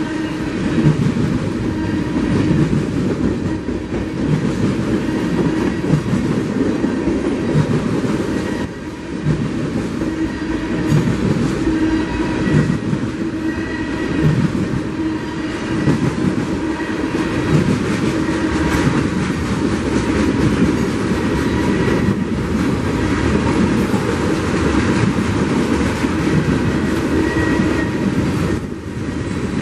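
Freight cars, boxcars and then tank cars, rolling past close by: a steady rumble of steel wheels on rail with a rhythmic clickety-clack as the trucks cross the rail joints.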